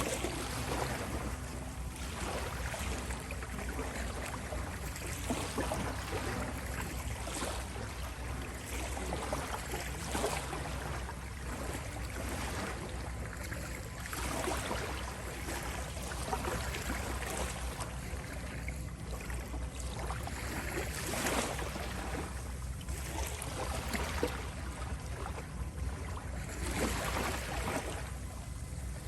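Ocean waves washing in, swelling and falling back every few seconds over a steady low rumble.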